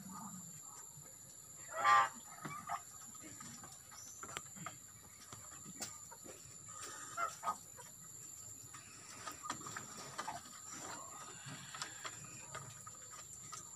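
Goats bleating: one loud, wavering bleat about two seconds in, then a few fainter bleats later on.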